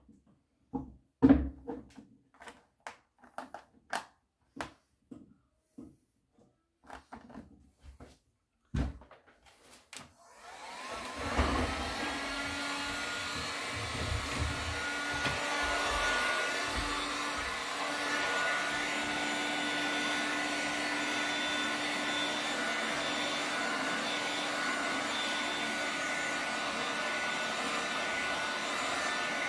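Scattered light knocks and clicks, then about ten seconds in a vacuum cleaner switches on, spins up with a rising whine and runs steadily, with a constant hum and a high whine.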